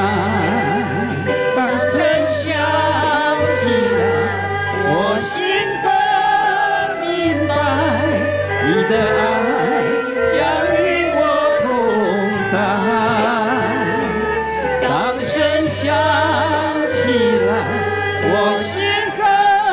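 Erhu ensemble playing a gliding, sliding melody over accompaniment with a steady bass line.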